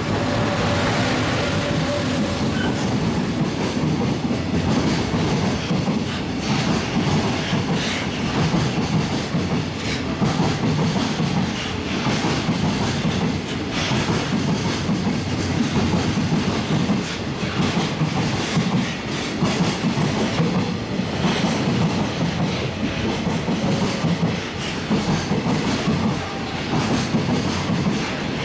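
Freight train passing at speed: an EF210 electric locomotive goes by at the start, then a long string of container wagons rolls past with the wheels clacking over the rail joints in a steady run of beats.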